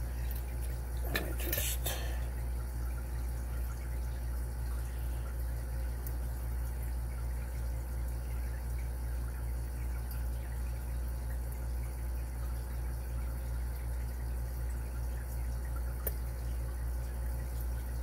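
Steady low background hum with faint metallic clicking and scraping from lock picks working a Carbine padlock. A cluster of sharper clicks comes between one and two seconds in, and a single tick near the end.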